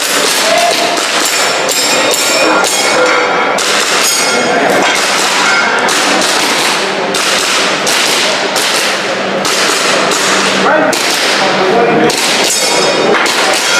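A string of sharp cracks at irregular intervals: airsoft pistol shots and BBs striking steel plate targets, over a continuous bed of voices.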